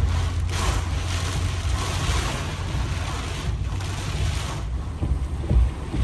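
Heavy rain and gusting wind of a severe thunderstorm: a loud rushing hiss that swells about half a second in and dips twice near the end, over a low rumble of wind buffeting the microphone.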